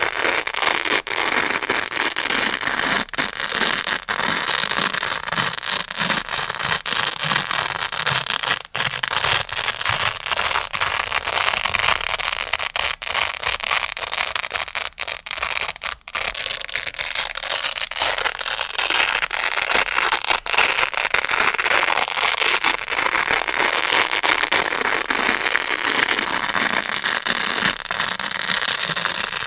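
Grey hook-and-loop Velcro pad scratched and pulled close to the microphone: continuous crunchy crackling, with a couple of brief breaks about nine and sixteen seconds in.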